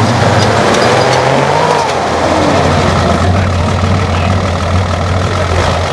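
Datsun off-road 4x4's engine pulling under load as the truck crawls over rough, rutted ground. The revs ease off about two seconds in, then it runs steadily at low revs.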